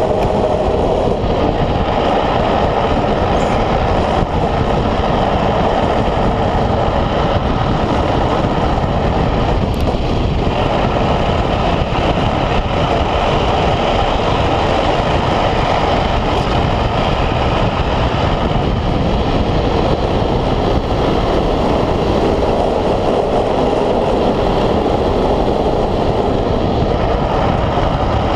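Steady rush of wind and wheel noise on asphalt from an unpowered speed trike coasting fast downhill, heard from a camera mounted on the trike.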